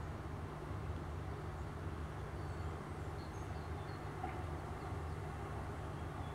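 Steady low outdoor background rumble, with a few faint, short, high bird chirps around the middle.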